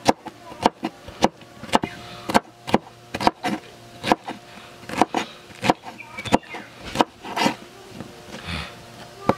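Kitchen knife dicing pineapple on a cutting board: the blade knocks sharply against the board, about two strokes a second.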